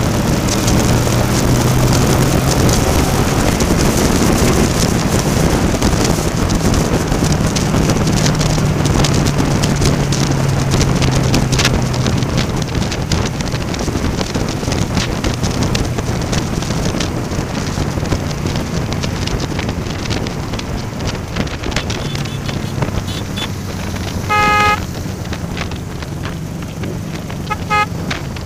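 Motorcycle engine running at a steady cruise under heavy wind rush on a helmet camera, the rush easing a little in the second half. A short horn toot sounds about 24 seconds in, with a briefer one near the end.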